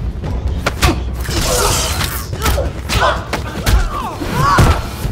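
Action-film fight sound effects: a quick series of thuds and blows, with short bursts of voice between them and music underneath.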